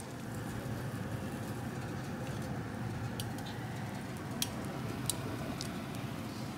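Hot frying oil in a pan settling just after the burner is turned off, giving a few sharp pops and clicks over a steady low hum.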